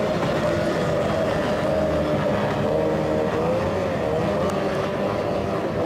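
Outboard engines of T-550 class racing boats running at high revs out on the water. It is a steady whine that wavers in pitch, with a brief dip and rise about four seconds in.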